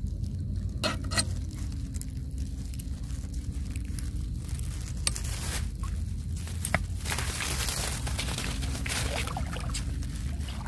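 Water sloshing and trickling close to the microphone over a steady low rumble, with scattered small clicks. The splashing gets louder for a couple of seconds past the middle.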